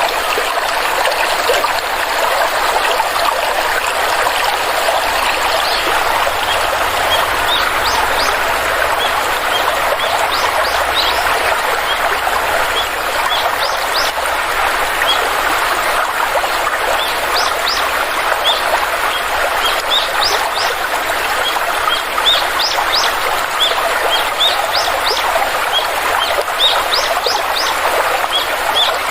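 Stream water flowing steadily, with small birds chirping over it: many short, high, quick rising chirps, more frequent from several seconds in.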